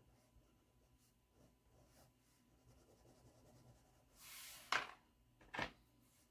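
Faint scratching of a crayon being rubbed across paper while colouring, followed near the end by a brief hiss and two sharp taps a little under a second apart.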